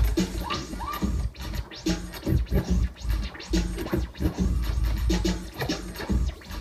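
DJ scratching a record on a turntable over a beat with heavy bass, the music chopped by quick back-and-forth scratches that keep cutting it in and out.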